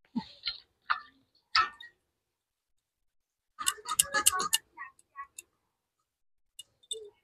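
Crisp clicks of food being cut against the blade of a boti, a fixed upright curved cutting blade. A few single cuts come first, then a quick run of cuts about three and a half seconds in, and a few more near the end.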